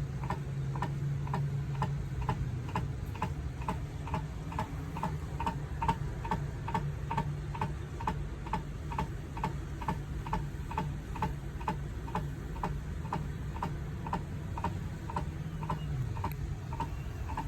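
Rooftop RV air conditioner's fan, turned by the wind while the unit is switched off, ticking evenly about three times a second over a low hum that fades near the end.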